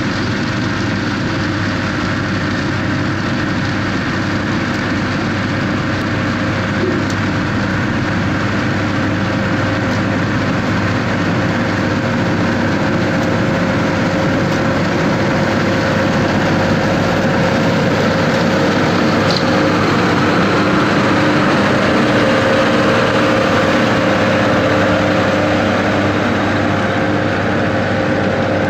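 Schlüter tractor's diesel engine running steadily at a constant pace, getting a little louder past the middle of the stretch.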